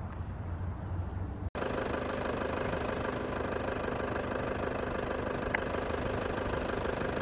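Pickup truck engine idling with a steady, even hum. It begins abruptly about one and a half seconds in, replacing a lower rumble.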